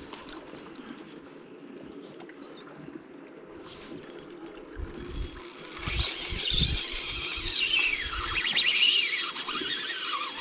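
Spinning reel's drag squealing in rising and falling whines as a hooked fish pulls line off it against a light jigging rod, starting about five seconds in and louder toward the end. A few low knocks from handling the rod come with it.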